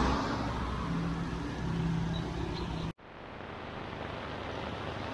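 A motor vehicle passes on the road, its swell fading into a steady engine hum. About three seconds in the sound cuts out abruptly and gives way to a steady hiss.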